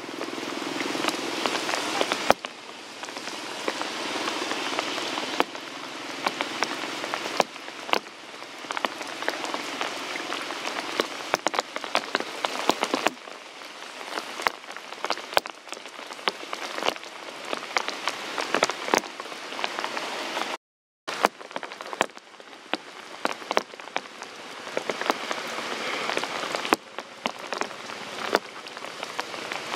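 Steady rain falling, an even patter with many close drops landing as sharp ticks. The sound cuts out completely for a moment about two-thirds of the way through.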